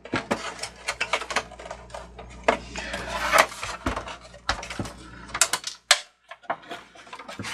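Plastic housing panels of a Cricut Expression cutting machine clicking, knocking and scraping as they are pried apart and lifted off. The clicks come irregularly throughout, with a longer rustling scrape about three seconds in.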